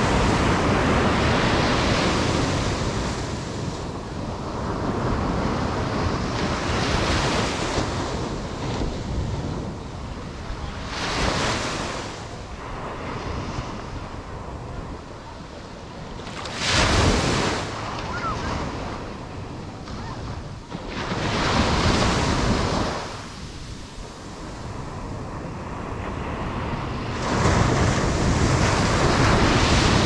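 Ocean surf breaking close on a sandy beach: a continuous wash that swells with each breaking wave. It surges sharply about 17 seconds in and again near the end, with wind rumbling on the microphone.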